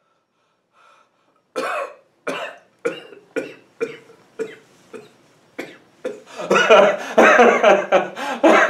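A man coughing about eight times, the coughs roughly half a second apart. At about six and a half seconds in he breaks into loud, continuous laughter.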